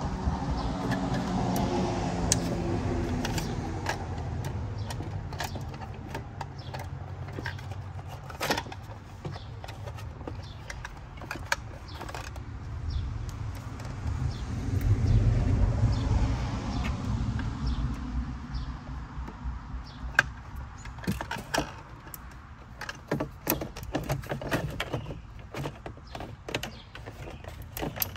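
A plastic electrical box and cable being handled and pushed into a plastic recessed wall box: scattered clicks, taps and rustles, coming thickest in the last third. Under them is a low rumble that swells near the start and again about halfway through.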